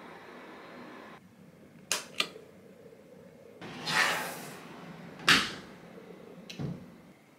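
Wooden door and cupboard being handled: two quick latch clicks, a swish as a door swings, then a sharp knock as it shuts, and a softer knock near the end.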